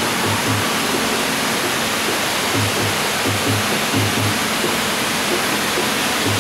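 Steady rush of flowing water, with low drumbeats in pairs from background music over it.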